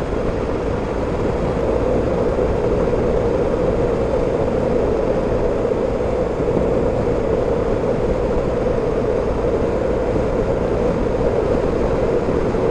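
BMW R 1250 GS Adventure motorcycle cruising at a steady speed: constant wind and road noise on a bike-mounted microphone, with no change in pace.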